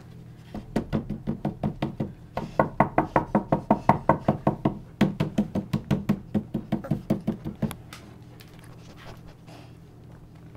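A rapid, even run of knocks, about five a second, lasting some seven seconds and then stopping.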